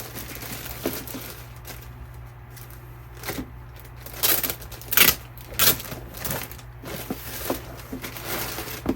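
Handling noises from a duffel bag being taken out and looked over: rustling, scattered clicks and a few short louder swishes about four to six seconds in.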